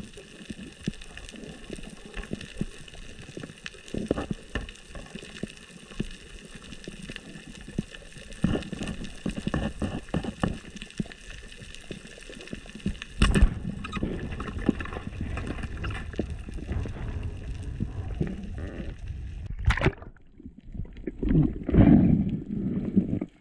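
Water gurgling and sloshing, with scattered clicks over a steady hiss. Near the end it changes abruptly to louder, lower, uneven sloshing.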